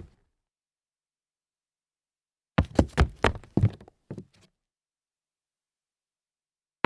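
Hard-soled dress shoes stumbling on concrete: a quick, uneven cluster of heel and sole strikes and scuffs, starting about two and a half seconds in and lasting about two seconds.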